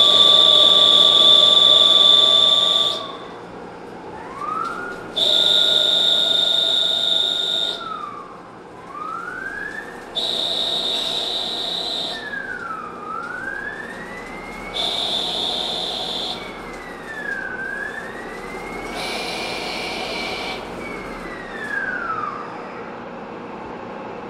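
CNC lathe turning a screw from bar stock under flood coolant. Its motor whine rises and falls in pitch, and five cutting passes of two to three seconds each add a louder high-pitched ringing tone.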